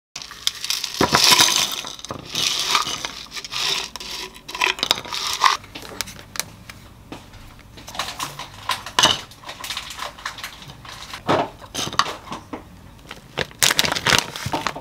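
Kitchen handling sounds: a spoon scraping and clinking as thick Greek yogurt is scooped from a plastic tub into a wooden bowl, with plastic packaging rustling. Near the end, a plastic bag of frozen mango cubes crinkles as the cubes are tipped into the bowl.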